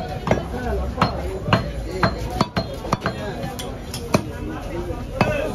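Heavy butcher's cleaver chopping beef on a wooden chopping block, sharp strikes about twice a second, with a crowd of voices chattering behind.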